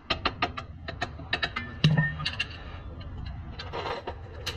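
Sharp metallic clicks and clinks of hand tools and parts during work on a Hyundai Santa Fe's rear suspension. The clicks come quickly at first, then more scattered, with a heavier knock about two seconds in.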